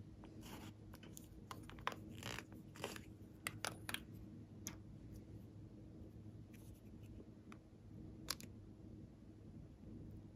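Faint plastic clicks and short scrapes as a small apple-shaped plastic pot is handled and its lid opened, clustered in the first few seconds, with one more click about eight seconds in; a plastic spatula then scrapes the red balm inside. A faint steady hum runs underneath.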